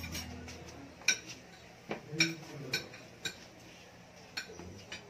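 Spoons and forks clinking against plates while several people eat, about seven sharp clinks at irregular intervals, each ringing briefly.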